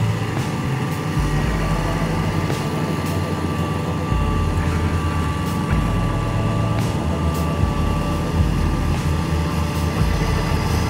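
Diesel engine of a tracked asphalt paver running steadily as it lays asphalt, mixed with other road-building machines nearby, with a constant thin whine over the engine noise.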